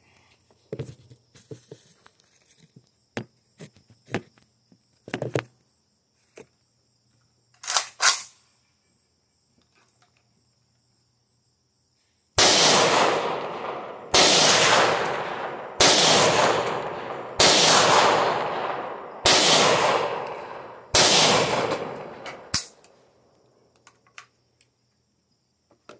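Light handling clicks and a sharp clack about eight seconds in, then an AK-47 rifle with a fixed magazine firing seven single shots about 1.7 seconds apart, each report ringing out and dying away.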